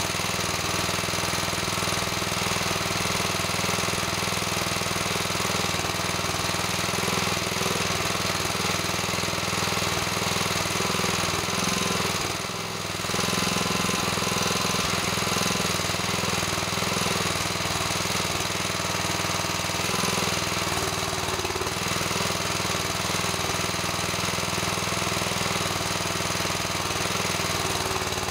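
Engine running steadily while driving a forestry trailer's hydraulic crane as the boom is swung; the pitch wavers a little as the crane works, with a short drop in level about halfway through.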